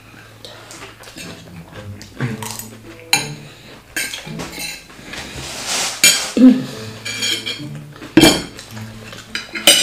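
Cutlery clinking and scraping against a plate during a meal of jollof rice, in a string of short, sharp clicks, the loudest a few seconds apart in the second half.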